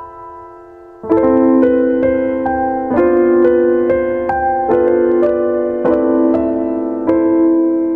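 Instrumental music. A quiet held note fades away, then about a second in louder sustained chords come in, with a melody of short notes struck over them.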